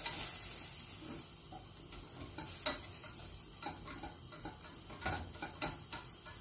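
Butter-and-flour roux being toasted in a stainless steel saucepan, stirred and scraped with a silicone whisk, with a quiet sizzle and the whisk clicking against the pan a few times.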